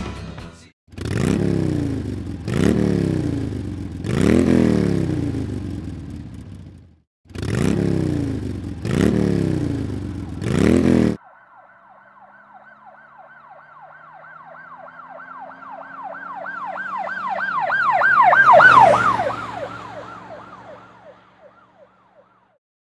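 An engine revved in six quick blips, each jumping up in pitch and sliding back down. Then, after a sudden cut, a wailing siren grows louder, peaks with its pitch dropping, and fades away.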